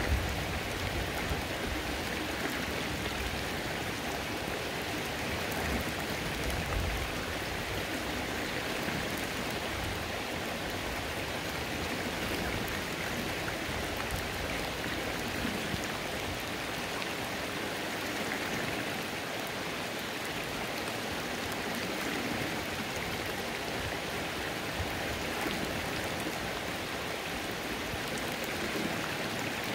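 Rain falling steadily on a flowing creek, an even hiss of drops and running water.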